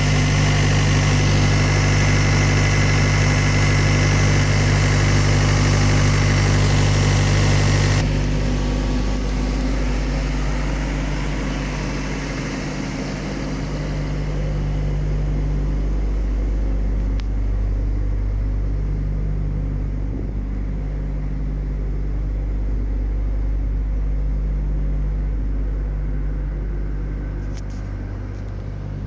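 Diesel engine of a refrigerated trailer's transport refrigeration unit running steadily with an even drone. It drops suddenly to a quieter, duller sound about eight seconds in.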